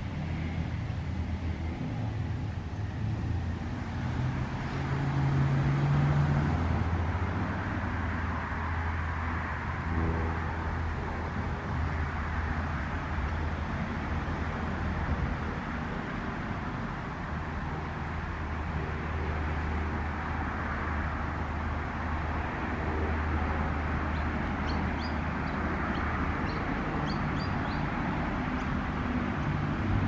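Outdoor garden ambience: wind on the microphone over a steady low hum, with a few faint, short high chirps near the end.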